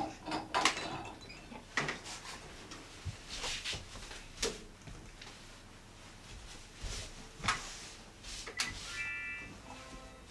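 Scattered knocks and clicks of household objects being handled and set down, with a short pitched sound about nine seconds in.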